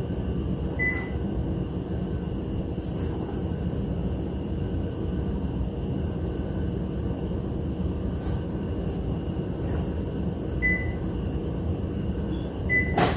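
Three short high beeps from an Epson ET-15000 printer's control panel as its buttons are pressed to enter alignment-pattern choices: one about a second in, two near the end. A steady low hum runs underneath.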